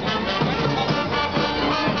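Brass street band playing, trumpets and trombones together.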